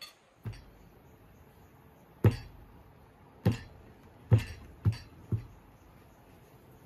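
A child's fist thumping on a table laid with dishes, six knocks at uneven intervals, the first one faint, each with a dull thud and a light clink of the crockery.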